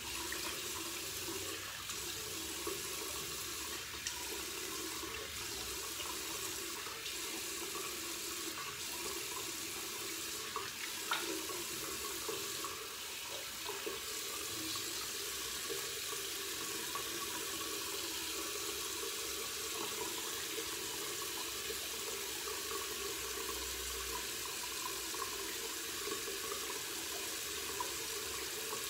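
Bathroom tap running steadily into a sink while a clay face mask is rinsed off by hand.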